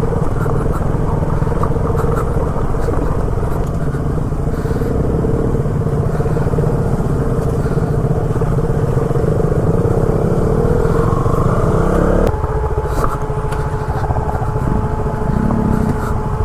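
Motorcycle engine running as it is ridden along an off-road track. Its pitch climbs for about two seconds and then drops abruptly, about three-quarters of the way through, leaving a steadier, lower drone.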